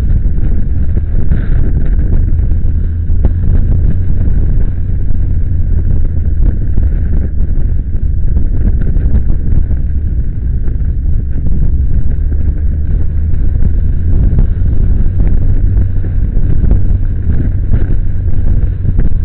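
Wind rushing over the microphone of a moving motorcycle, a heavy low rumble, with the motorcycle's engine running underneath.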